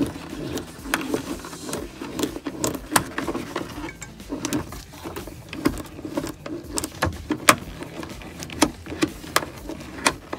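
Irregular clicks, taps and small knocks of plastic trim, a bracket and wiring connectors being handled by a gloved hand.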